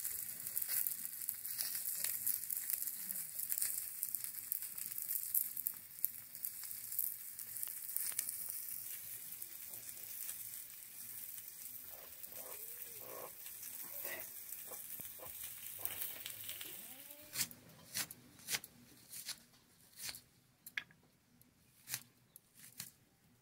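Pieces of fish sizzling in hot oil in an iron pan, being turned with a metal spatula; the sizzle fades after about nine seconds. A short pitched call comes about halfway through. In the last few seconds there are sharp clicks, one or two a second, as an onion is sliced against a fixed curved blade (a boti).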